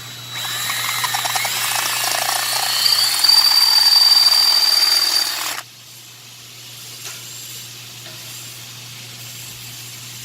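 Power drill with a 1/2-inch bit countersinking a bolt hole in the sign frame, running for about five seconds with a high whine that rises partway through, then stopping suddenly.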